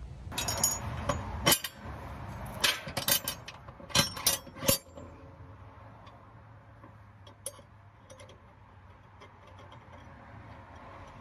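Steel mower blade hardware (blade, bolt and spacer) clinking and clanking as it is handled, with a run of sharp metallic clinks in the first five seconds, then only a few faint ticks.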